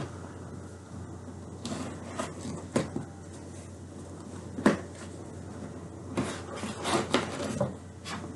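A cardboard shipping box being opened by hand: scattered rustling, scraping and knocking of cardboard and packing, in two busy spells with a sharp knock between them.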